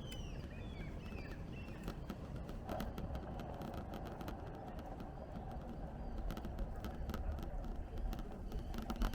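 Birds chirping in the first second or two over a low steady rumble, with scattered faint ticks throughout.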